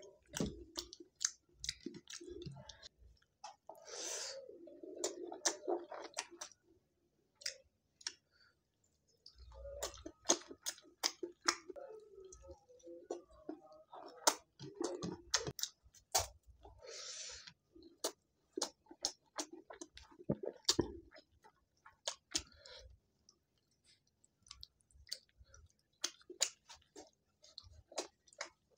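A person eating close to the microphone: chewing with many short, sharp mouth clicks in irregular spells, broken by brief pauses.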